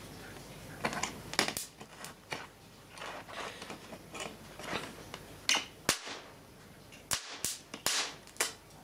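Sparks from a charged capacitor bank being discharged through small electronic components: a string of irregular, sharp snaps and clicks, several louder cracks among them. It is the sound of the parts being overloaded and blown, ending with an integrated circuit giving way.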